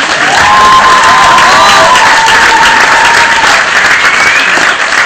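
Studio audience applauding and cheering loudly, with a few long high cries rising over the clapping in the first few seconds. The sound is harsh and poor, recorded on a mobile phone.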